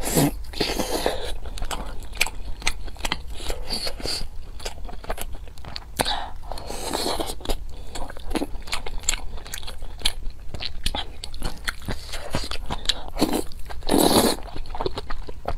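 Close-miked chewing of braised meat, with wet smacking and clicking mouth sounds. About thirteen seconds in comes a louder slurp of noodles.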